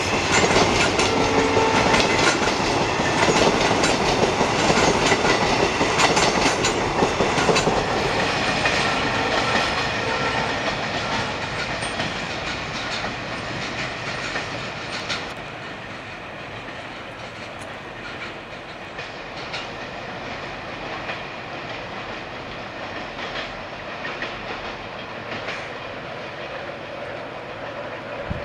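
Passenger train coaches rolling past, their wheels clattering over the rail joints. The sound is loud at first and fades away over the first ten to fifteen seconds, leaving a fainter steady rumble.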